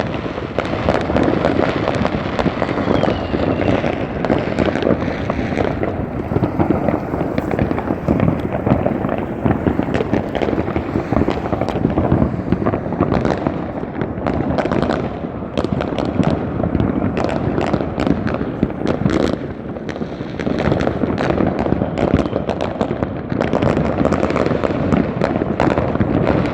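Dense, continuous barrage of fireworks: countless overlapping bangs, pops and crackles with no break.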